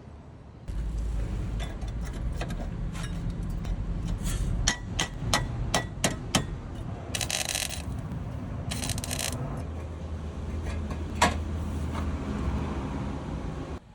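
Bodywork on a rusty rocker panel. Over a steady low hum comes a quick run of sharp metal taps, then two short hissing bursts, then a single loud clack.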